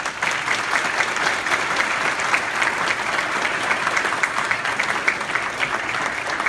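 A congregation applauding: many hands clapping at once, starting all together and holding steady.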